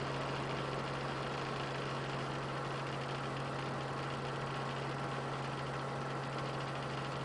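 Steady low mechanical hum over a constant hiss, like an idling engine.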